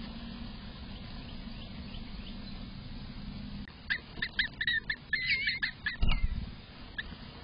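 A steady low hum, then from about halfway a quick run of high chirps and twitters from a bird, with a dull thump near the end and one last chirp.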